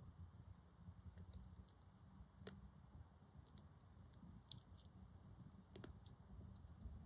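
Near silence with faint, scattered clicks, two sharper ones about two and a half and six seconds in: a young black-tailed deer crunching apples, over a low rumble.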